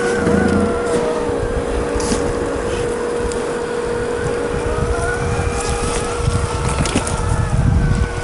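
Tamiya CC-01 RC car's 55-turn brushed electric motor and gearbox whining, the pitch wavering up and down with the throttle, over a rumble from the tyres on rough ground that grows louder near the end.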